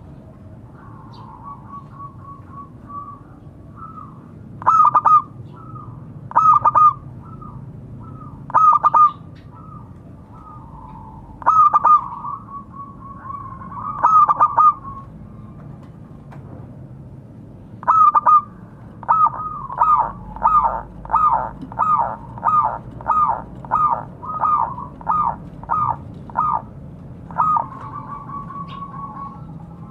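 Zebra dove (perkutut) cooing: soft coos at the start, then several loud separate coos, then a quick series of about a dozen staccato coos in the second half.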